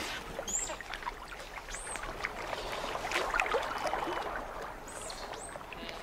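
Giant otters swimming and splashing through lake water, an uneven sloshing and splashing.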